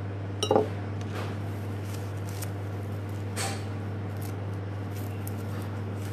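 A steady low hum, with a sharp clink about half a second in and a softer tap a few seconds later as objects are handled on a worktop.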